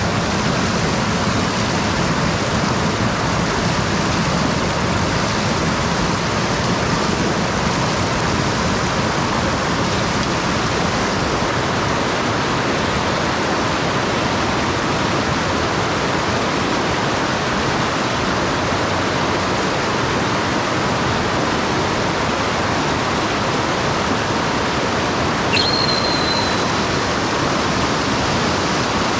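Mountain stream water rushing steadily, with one short high-pitched sound near the end.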